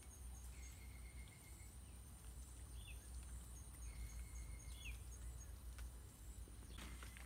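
Quiet forest ambience: a steady high insect drone with a faint fast ticking, two held whistled bird notes about a second long each, and a couple of short falling chirps, over a low steady rumble.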